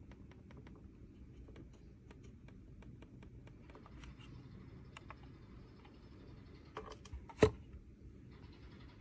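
Quiet clicks of a Logitech Lift vertical ergonomic mouse's buttons, faint and irregular, then a soft rubbing as the mouse slides on a mousepad. One sharp knock near the end is the loudest sound.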